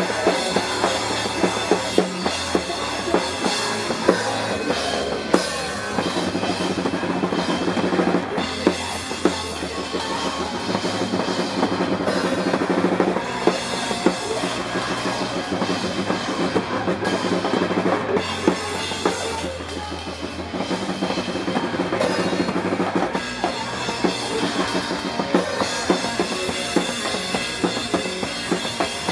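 Live band playing a rock song, with the drum kit loud and up front, frequent kick and snare hits, and a bass line moving underneath.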